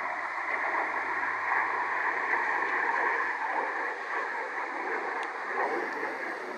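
Distant jet engine noise from a formation of Canadair CT-114 Tutor jets: a steady, even rushing roar.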